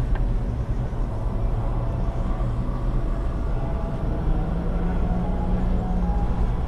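Steady low rumble inside a moving cable car gondola cabin as it rides along its rope, with a steady low drone joining about four seconds in and fading about two seconds later.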